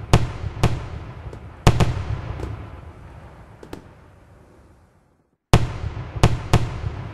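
Aerial firework shells bursting: a string of sharp bangs, each trailing off in a fading rumble, with lighter pops between them. The sound cuts out briefly about five seconds in, then three more bangs follow in quick succession.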